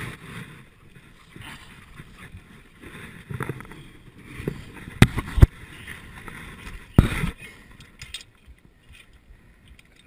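Close rustling and scuffing of clothing and gear against the mountain bike, with sharp knocks twice about five seconds in and once more about seven seconds in.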